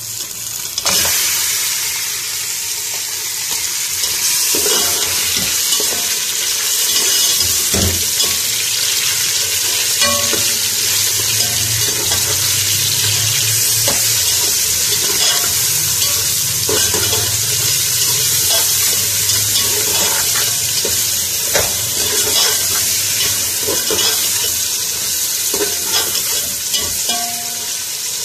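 Mutton pieces dropped into hot oil and browned onions in a pressure cooker start sizzling loudly about a second in. They keep frying steadily while a metal spoon stirs them with occasional knocks and scrapes against the pot.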